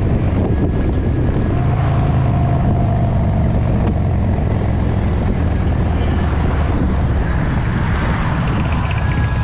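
Motorcycle engine running at a steady cruising speed, a constant low drone, heard from a camera mounted on the bike's handlebars.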